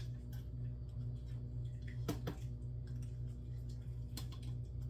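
A few scattered clicks and taps of a small spoon against a spice jar as ground ginger is spooned out, over a steady low hum.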